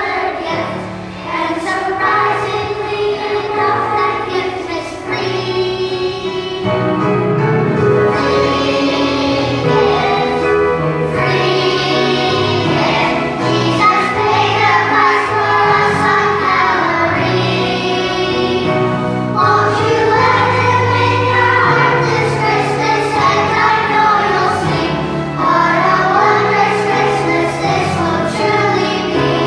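Children's choir singing a Christmas worship song together over instrumental accompaniment.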